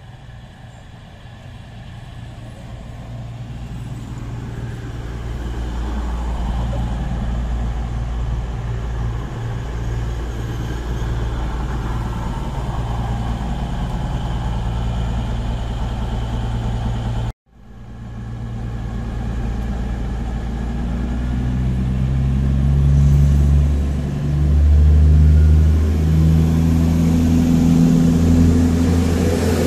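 CrossCountry Voyager diesel multiple unit's underfloor diesel engines growing louder and then running steadily as the train draws alongside. After a sudden break, the engines power up and their note climbs in steps as the train accelerates away.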